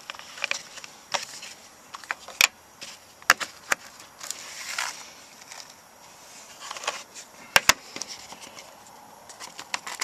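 Metal Zippo lighters being handled and moved in their case: a scatter of sharp metallic clicks and knocks, two of them in quick succession near the end, with scratchy rustling in between.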